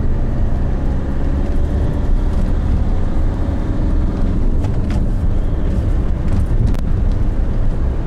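Road and engine noise from inside a moving car: a steady low rumble of tyres and engine at cruising speed.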